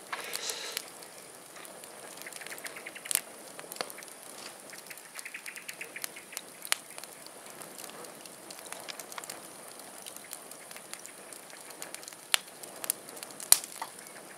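Wood fire burning in an open steel cone biochar kiln: a soft steady rush of flame with scattered sharp crackles and pops, a few louder pops near the end.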